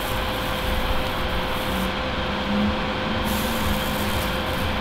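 Fume extractor fan running: a steady rushing noise with a constant hum.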